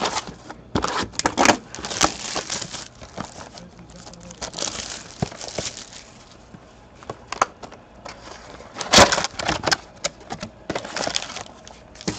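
Hands opening a cardboard box of hockey cards and handling the foil-wrapped packs inside: irregular scraping, rustling and crinkling, loudest about a second in and again around nine seconds in.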